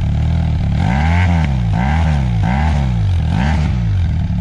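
Benelli TRK 502X's 500 cc parallel-twin engine, heard close at the exhaust, blipped four times from idle, each rev rising and falling back. Clean and smooth between the blips.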